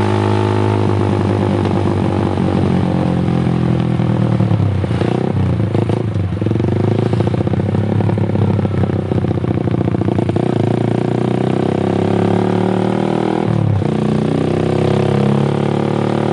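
Honda CS1's single-cylinder 125 cc four-stroke engine running through a Proliner header and a fully baffled Lone Rider aftermarket silencer, a loud, steady exhaust note. About three-quarters of the way through, the pitch dips briefly and comes back.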